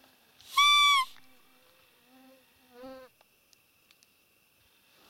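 Roe deer call blown once: a loud, steady squeak lasting about half a second, imitating a roe doe's call to draw in a rutting buck. Fainter, lower squeaks follow around two and three seconds in.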